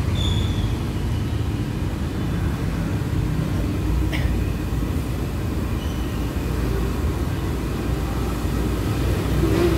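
Steady low background rumble, with a faint click about four seconds in.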